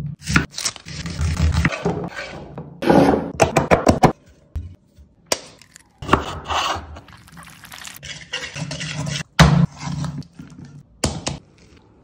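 Kitchen prep sounds: a knife cutting through onion and lemon and knocking on a wooden cutting board, with scraping and crunching of cut vegetables. They come in short bursts that start and stop abruptly, with a brief quiet break about four seconds in.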